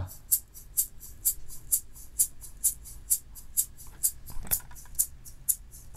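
Shaker track soloed from a multitrack recording, shaken in a steady beat of about two crisp strokes a second.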